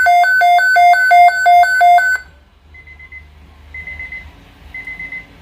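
Weather radio's electronic alert alarm, a buzzy beep switching between a low and a high pitch several times a second, cutting off about two seconds in. Faint short high beeps follow about once a second.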